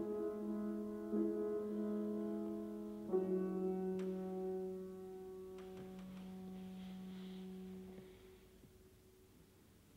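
Grand piano played solo: a chord at the start, then another struck about three seconds in and held, ringing until it dies away about eight seconds in.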